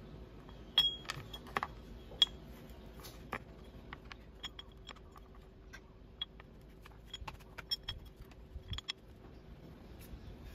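Dr Pulley plastic sliders clicking and tapping as they are handled and set one by one into the ramps of an aluminium scooter variator. The clicks are irregular and sharp, and some carry a brief metallic ring.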